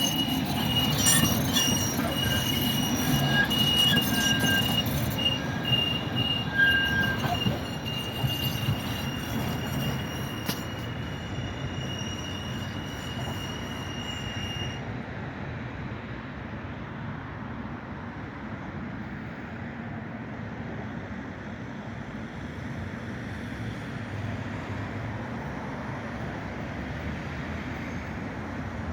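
Tram wheels squealing as the tram rounds the tight curve of a turning loop, a high steady squeal over the low rumble of the running tram. The squeal stops about halfway through, and the rumble slowly fades.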